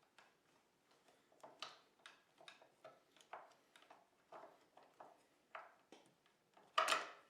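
Metal clicks and knocks, irregular at about one or two a second, with the loudest clank near the end: a new wide foot peg and its pivot stud being worked into the footpeg mount.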